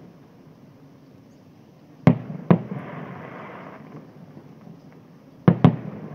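Aerial fireworks bursting: two pairs of sharp bangs, one about two seconds in and one near the end, the bangs in each pair a fraction of a second apart. A softer rushing crackle follows the first pair.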